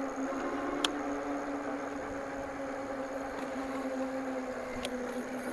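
Electric bike's hub motor whining steadily at a constant cruising speed on throttle alone, with no pedalling. Two short clicks sound, about a second in and near the end.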